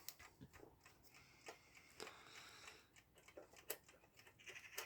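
Faint, irregular small clicks and a light rasp from a Seven Star mechanical alarm clock being handled as its hands are set.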